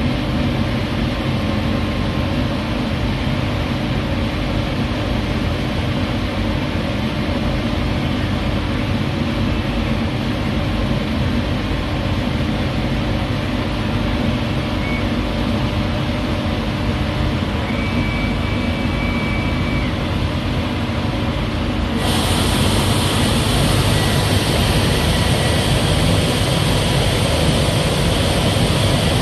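Twin-head conveyor-bed laser cutting machine running while cutting fabric: a steady droning machine hum with a constant low tone. A brighter hiss comes in suddenly about three-quarters of the way through.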